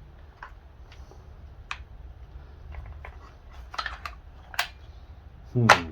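Scattered light clicks and taps of chainsaw parts being handled, over a low steady hum, with a short vocal sound just before the end.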